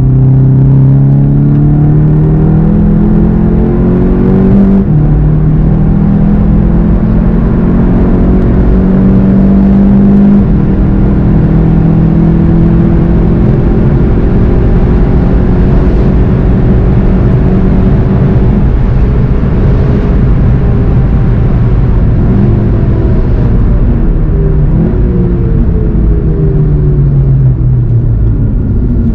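VW Golf 7 GTI TCR's turbocharged 2.0-litre four-cylinder heard from inside the cabin under hard acceleration, the pitch climbing and dropping at upshifts about five and ten seconds in. It then holds high at speed before falling steadily over the last third as the car brakes and downshifts.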